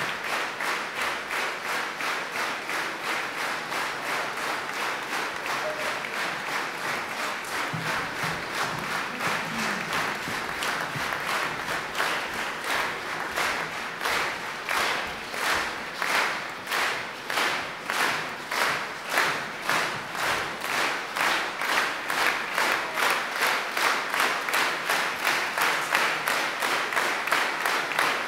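A large concert audience applauding. About halfway through, the clapping falls into a steady rhythmic beat in unison, roughly two to three claps a second, and grows a little louder.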